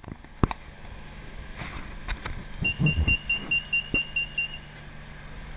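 Rapid high-pitched electronic beeping, about six short beeps a second for some two seconds from the middle, typical of a BTS Skytrain's door-closing warning, over a steady station hum. A sharp click about half a second in and a few low thumps around the beeping.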